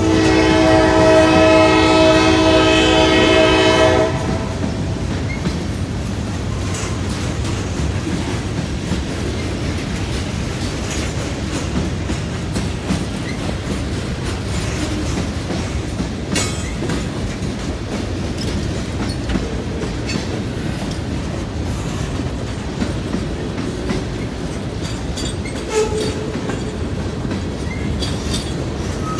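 A freight locomotive's horn sounds one long blast that cuts off about four seconds in. Throughout, the freight cars (covered hoppers and boxcars) roll past with a steady rumble and wheel clatter over the crossing.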